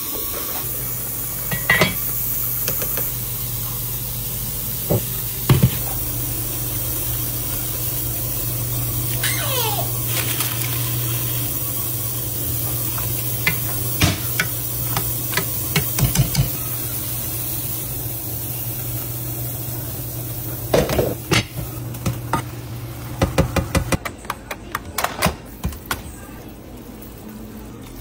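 Kitchen cooking sounds: a steady hiss over a low hum, broken by clinks and knocks of a spoon and pots. Near the end the hum drops away, after a quick run of clattering.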